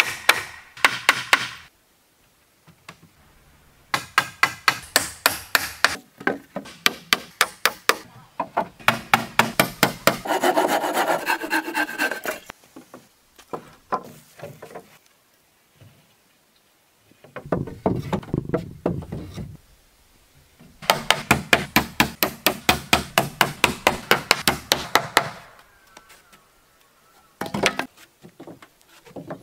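Hand carpentry on wooden boards: several runs of rapid, evenly spaced hammer blows and rasping strokes on wood, each run lasting a few seconds with short pauses between.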